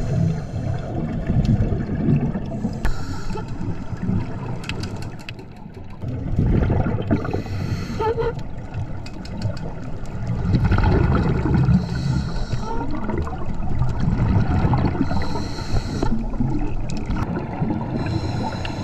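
Scuba breathing underwater: exhaled bubbles from a regulator rumbling and gurgling past the camera, with a short hiss of inhalation through the regulator every few seconds.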